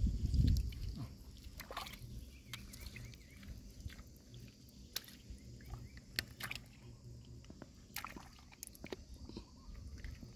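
Hands working in a shallow rock pool, picking up clams, with small water sloshes and scattered sharp clicks of the shells knocking together over a faint low rumble.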